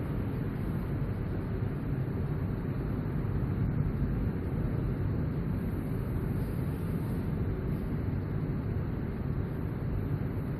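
Steady low-pitched background rumble with no distinct events.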